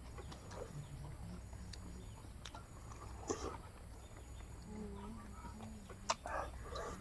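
People eating with their hands: chewing and lip smacks with a few sharp clicks, and twice a short, low wavering hum.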